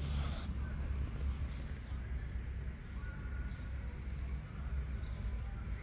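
Steady low rumble with a brief rustle at the start and faint higher sounds later.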